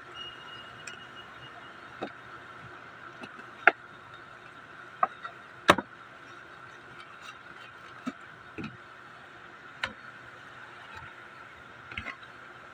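Scattered sharp clicks and taps of cardboard and paper card packaging being handled and opened, about eight in all, over a steady faint high tone.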